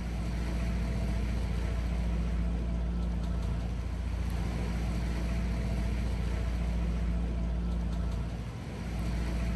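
Catamaran's engine running steadily under way: a low, even drone with a haze of water noise over it. It dips briefly near the end.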